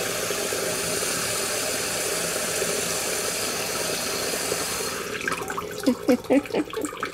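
Kitchen single-lever mixer tap running in a steady stream; about five seconds in the flow is cut back suddenly as the cat pushes the lever down, leaving an irregular trickle of gurgling drips because the tap is not fully closed.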